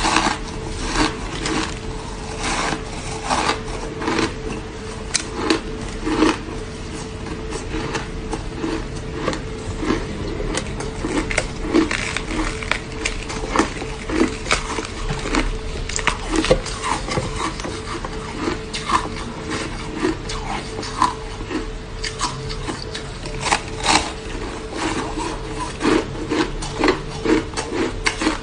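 Frozen coloured ice being bitten and chewed: a dense, irregular run of crisp crunches and scraping crackles, many times over, loud and close.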